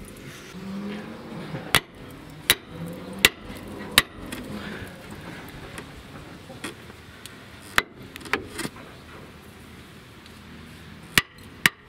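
A hammer strikes the rust-seized brake disc of a Renault Midlum lorry on its hub, sharp metal-on-metal blows to knock it loose. There are four evenly spaced blows, then a few more after a pause and two near the end.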